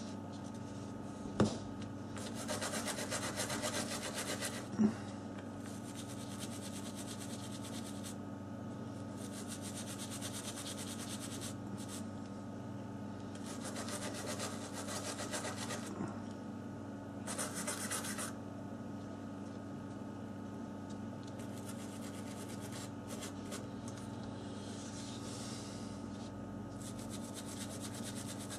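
Scrubbing on a water-damaged Samsung Galaxy S4 circuit board to clean off corrosion, in stretches of one to three seconds with short pauses between. Two sharp taps come in the first five seconds, over a steady low hum.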